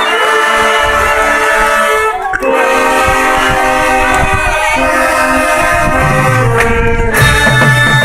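Marching band brass section (trumpets, trombones, mellophones and sousaphones) playing loud, long held chords, broken off briefly about two seconds in and again about seven seconds in. Low sousaphone notes join near the end.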